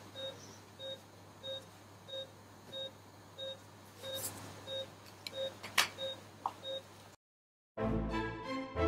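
Bedside patient monitor giving its pulse beep, one short beep with each heartbeat, about one and a half a second, in step with a heart rate in the low nineties. A few faint clicks fall among the beeps; the beeping cuts off near the end and music starts.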